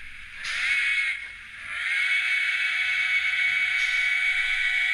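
Sound-fitted model of an ROD Baldwin 0-6-0T steam tank locomotive on a test run, its small onboard speaker playing DCC steam sounds. There is a short burst of hiss about half a second in, then a steady held note over hiss for the rest.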